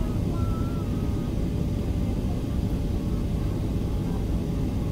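Steady cabin noise inside a jet airliner on descent: the low rumble of the engines and rushing air, with a faint steady hum.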